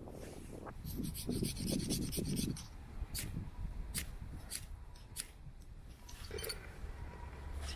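A run of rough rasping strokes in quick succession about a second in, followed by several separate sharp clicks.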